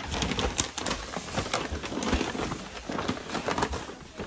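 Irregular rustling with many light clicks and knocks as shopping purchases and their bag are handled.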